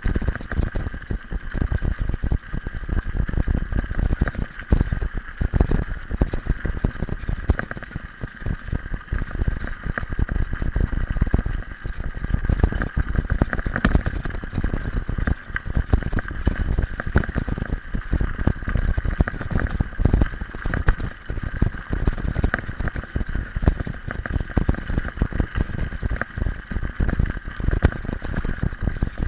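Mountain bike rolling over a gravel road: a continuous rumble and rattle of the tyres crunching on loose stones and of the bike jolting over them, with many small knocks.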